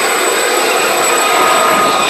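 Aerospatiale SA341G Gazelle helicopter's turboshaft engine and rotors running at full power as it lifts off and climbs away: a loud, steady rushing sound with a thin high whine held on one pitch.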